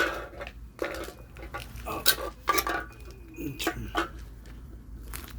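Scattered clicks and knocks of hard objects being handled, about seven separate sharp taps and clatters.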